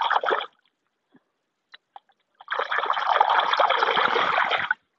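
Hands splashing and churning hard in a shallow muddy puddle: a short burst right at the start, then a longer spell of about two seconds of continuous splashing that stops shortly before the end.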